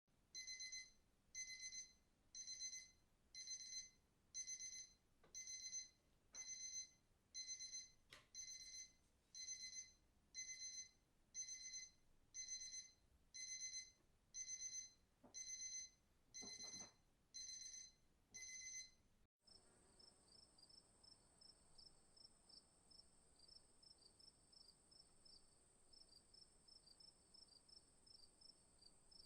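Faint electronic alarm beeping: short high, ringing beeps about three every two seconds, which stop abruptly about two-thirds of the way through. A faint steady, high insect-like trill follows, like crickets.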